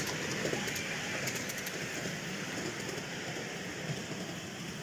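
A 7¼-inch gauge miniature railway train rolling past on its track and moving away: a steady rumble of wheels on rail with a few light clicks, slowly fading.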